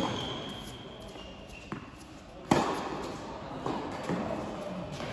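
Tennis rally on an indoor hard court: sharp pops of the ball on the racket strings and court. The first comes at the start and a loud one about two and a half seconds later, each ringing in the big hall.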